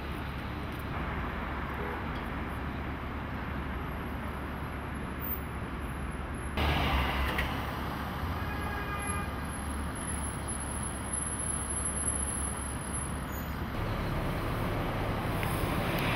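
City street traffic noise: a steady rumble of passing vehicles, which gets louder suddenly about six and a half seconds in and again near the end.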